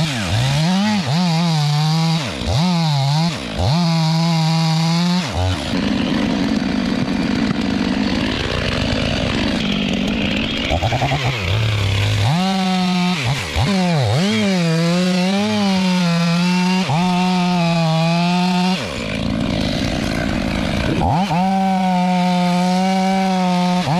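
Two-stroke chainsaw running at high revs, its pitch dipping and recovering again and again as the throttle is eased and reopened. In a long stretch in the middle, and again briefly near the end, it runs lower and rougher, as when the chain is loaded in the cut.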